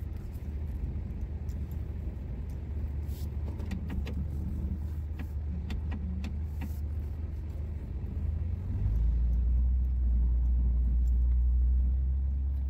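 Pickup truck engine and drivetrain rumbling steadily, heard from inside the cab of a 2003 Dodge Ram 2500 as it plows snow, with a few light clicks. About nine seconds in the rumble grows louder and deeper.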